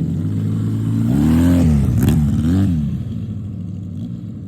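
Twin-cylinder engine of a mini motorbike idling, then revved up and down three times: one longer rev followed by two quick throttle blips, before settling back to idle.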